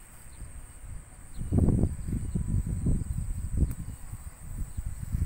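Insects droning steadily at a high pitch in a rural field, with irregular low thumps and rustling starting about one and a half seconds in.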